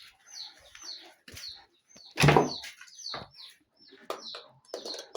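Small birds chirping in quick short high notes, over and over, with one louder, short low sound about two seconds in.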